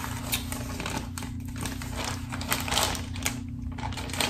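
Tissue paper and a paper gift bag crinkling and rustling in irregular bursts as the tissue is pulled out by hand, gently and without tearing.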